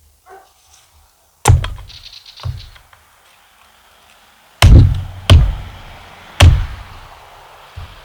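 Wood being chopped into small pieces with a blade, five sharp chops thudding into a wooden stump, the second weaker and the last three in quicker succession.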